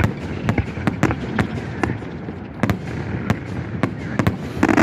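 Fireworks display: rapid, irregular bangs of shells bursting, several a second, over continuous crackling, growing denser near the end.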